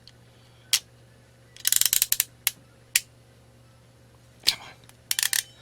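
Ratcheting modular-plug crimp tool clicking as its handles are squeezed on flat telephone cable: a quick run of ratchet clicks about two seconds in, with single sharp clicks before and after and another short cluster near the end.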